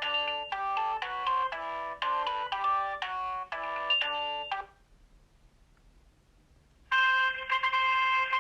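Alcatel OT 735 mobile phone playing its built-in ringtones: a quick synthesized melody of several notes at once ends about halfway through. After a two-second pause, the next ringtone starts near the end with a denser run of notes.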